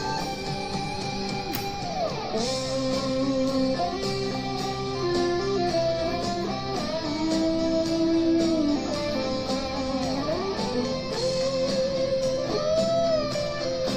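Eko LP-style electric guitar played through a Cuvave Cube Baby mini amp into a JBL Clip 3 speaker. It plays a melodic lead of long sustained notes that slide and bend in pitch, over steady lower notes.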